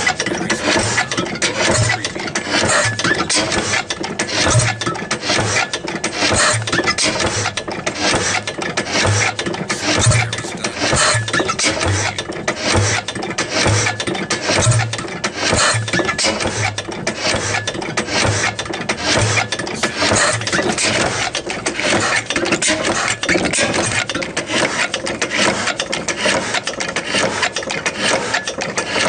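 Old steam engine running steadily: a fast, dense mechanical clatter with a low beat recurring about once a second.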